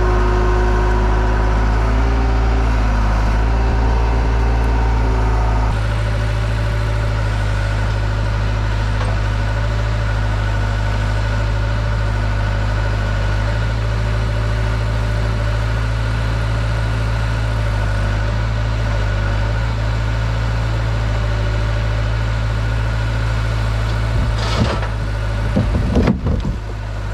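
Diesel engine of a compact construction machine running steadily. Its speed and level drop slightly about six seconds in, and a few knocks and clatter come near the end.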